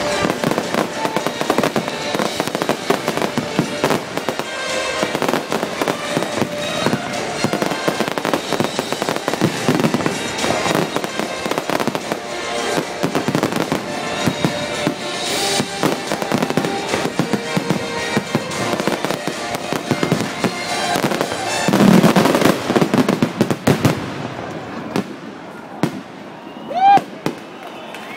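Fireworks display: a dense, continuous crackling and banging of many bursting shells. The loudest cluster of bangs comes about 22 seconds in, then the bursts thin out near the end.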